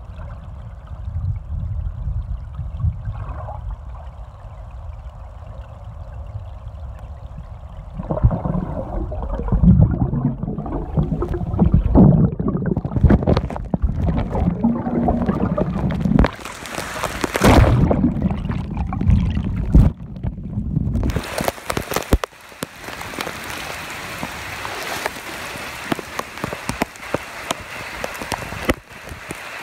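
Water heard through a phone's microphone held underwater: a muffled low rumble and sloshing that turns louder and more agitated, with crackles, about eight seconds in. About two-thirds of the way through the sound suddenly opens up into a steady hiss of rain falling on the water.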